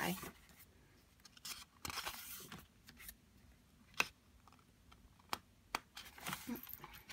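Glossy photo-book pages being turned by hand: a few soft paper swishes, with several short sharp clicks of the paper in between.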